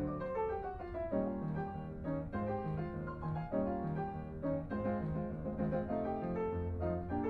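Background music led by piano, a run of short notes over a steady low bass.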